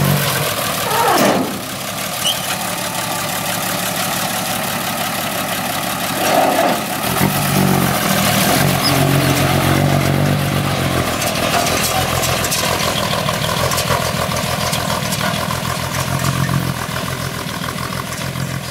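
Diesel engine of an old six-wheel dump truck running, with a falling rev about a second in, then driving off over the dirt.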